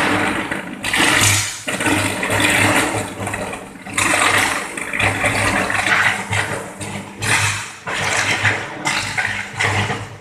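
Electric arc furnace arcing: a loud, ragged crackling roar over a steady low electrical hum, breaking off and starting again abruptly several times.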